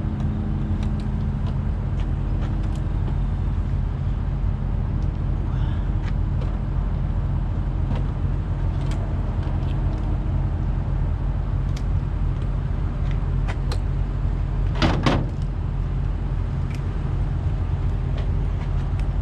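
Steady low diesel engine hum, with light clicks and knocks of hand tools and one short, louder metallic clank about fifteen seconds in.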